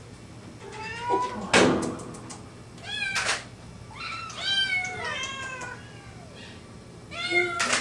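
Frightened feral kittens meowing repeatedly, high cries that rise and fall, about six in all, broken by three short sharp hisses. The loudest hiss comes about a second and a half in. One tabby kitten stands arched with its fur bristling: the hisses and cries are a scared kitten's defensive warning.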